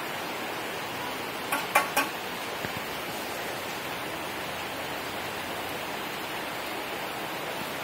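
Heavy rain falling steadily on trees and a tiled terrace, an even hiss. Three sharp taps stand out, close together, just under two seconds in.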